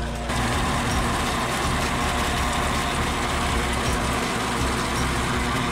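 Tractor engine running steadily under load while its rear-mounted rotary weeder and bund former churns through the soil; the sound grows fuller about a third of a second in.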